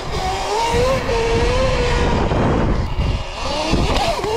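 Electric dirt bike's motor whine, climbing in pitch as it pulls and holding, dropping away about halfway, then climbing again near the end. Wind buffets the helmet microphone at riding speed.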